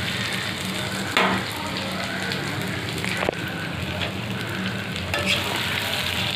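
Potato chunks sizzling as they fry in a hot pan, with a couple of sharp knocks on the pan, about a second in and again about three seconds in.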